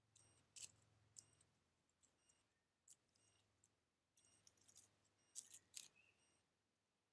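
Red fox cubs moving close to a trail camera: faint crisp clicks and short rustles, loudest about five and a half seconds in as a cub comes right up to the lens.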